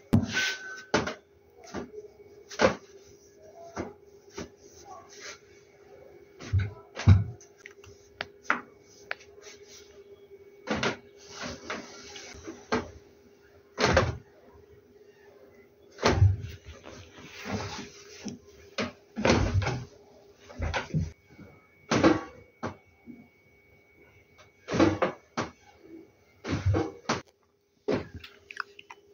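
Irregular knocks, thumps and cloth rustling from hands-on handling of a patient on a treatment couch, over a steady low hum.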